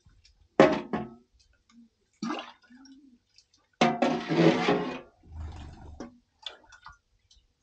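Water splashing and sloshing in several short bursts, the longest and loudest lasting about a second near the middle.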